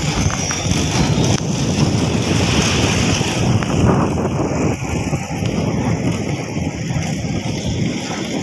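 Wind buffeting the microphone over a steady rumble of tyres on the road, while the vehicle coasts downhill with its engine switched off.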